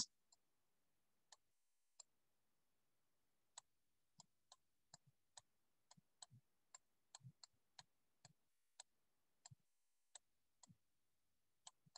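Near silence broken by faint, irregular clicks of a stylus tapping on a tablet as handwriting is drawn, a few a second from about three and a half seconds in.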